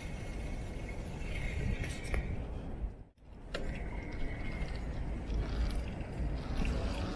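Wind rumbling on the microphone, mixed with tyre and road noise from a bicycle being ridden along a city street, plus a couple of faint clicks. The sound drops out sharply for a moment about three seconds in.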